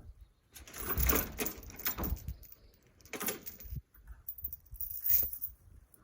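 Cedar branches being pulled and dragged through brush: irregular bursts of rustling and crunching, the loudest about a second in.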